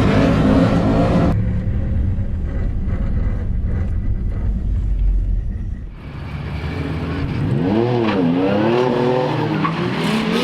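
Turbocharged 3.8-litre V6 engine of a Holden Commodore ute running hard at a drag strip. From about seven seconds in, the revs rise and fall repeatedly with the throttle.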